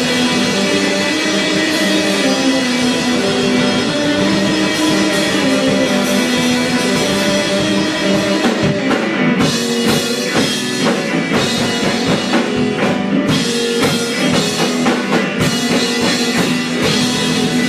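Live instrumental progressive rock from an electric guitar holding sustained chords over a Pearl drum kit. From about halfway through, the drums turn busy and choppy with rapid hits.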